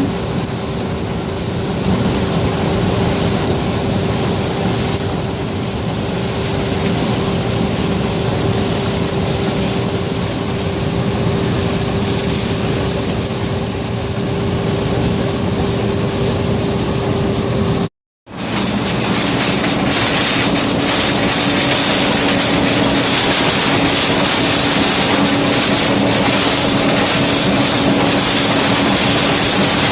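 John Deere 9550 combine running steadily while harvesting corn, a constant machine drone with a steady engine note. A little past halfway the sound drops out for a moment and comes back louder, with a lower note.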